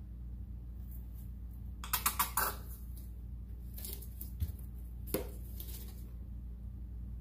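Plastic paint squeeze bottles clicking and knocking on the table as they are handled, set down and picked up. A quick run of clicks comes about two seconds in, then a few single knocks, over a steady low hum.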